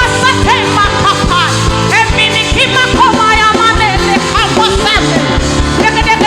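Gospel worship band music with a steady drum beat, bass and a bending melodic lead line.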